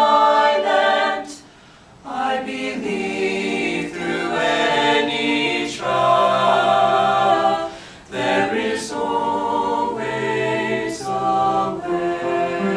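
A mixed teenage vocal ensemble of eight voices singing a cappella, holding chords, with a short pause for breath about a second and a half in and another brief break near eight seconds.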